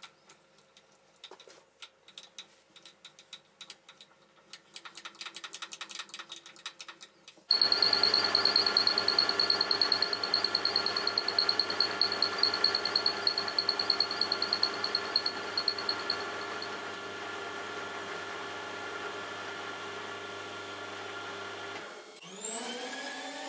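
Milling machine cutting the edge of a 10 mm aluminium plate with an end mill. The first few seconds hold only faint clicking. Then, about seven seconds in, the spindle and cut start suddenly with a steady mechanical running and a high whine that fades out about halfway through; near the end the sound dips and a motor speeds up, rising in pitch.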